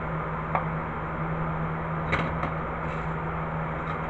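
A few light clicks of small metal tools being set down on a wooden table, once about half a second in and twice around two seconds in, over a steady low hum.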